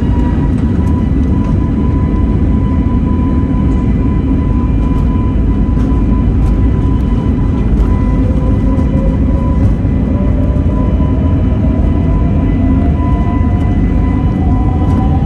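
Airbus A320neo heard from inside the cabin on its takeoff roll: a loud, steady engine rumble with a steady high whine over it. About halfway through, a second whine starts and slowly rises in pitch.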